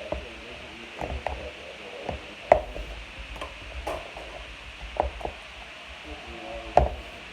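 A series of irregular sharp clicks and knocks, about a dozen, loudest about two and a half seconds in and again near the end.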